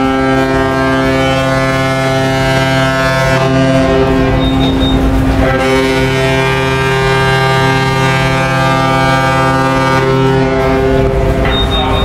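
Ship's horn of the passenger ship KM Bukit Raya sounding long, deep blasts: one that stops about three seconds in, then a second from about five and a half seconds until near the end. They are part of the three horn blasts that signal the ship is about to depart.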